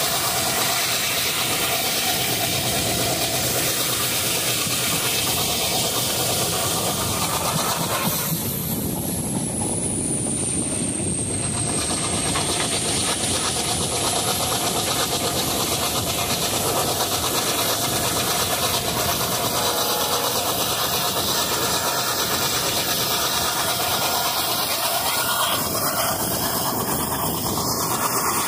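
Train running along the track: a steady rushing noise of wheels on rails.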